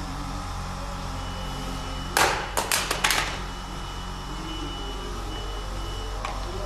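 AT10SK solar mini GPS padlock dropped from 1.5 m in a drop test. It hits the ground with a loud knock about two seconds in, then clatters through several quick bounces over the next second. A steady low hum runs underneath.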